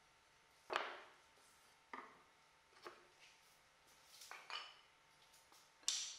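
Light, sharp knocks and clicks of wooden dowel pieces being handled and set down on a plywood workbench. There are about five, spaced irregularly, and the loudest comes about a second in.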